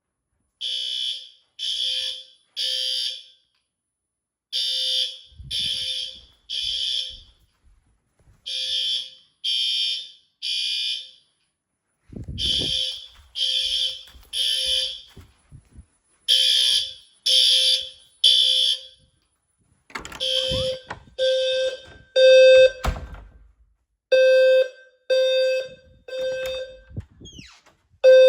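Fire alarm sounding in the temporal-three evacuation pattern: three short high-pitched beeps about a second apart, a pause, then three more, over and over. About twenty seconds in the beep changes to a lower, fuller tone in the same three-beat pattern.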